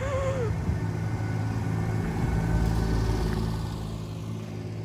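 Motor vehicle engine running with a steady low hum, growing louder about two and a half seconds in and easing off toward the end.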